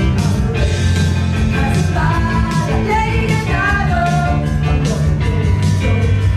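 Rock music with a steady beat and a singing voice carrying a wavering melody through the middle.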